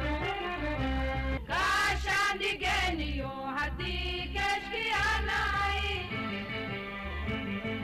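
Music: a song with a singing voice over a low, pulsing bass.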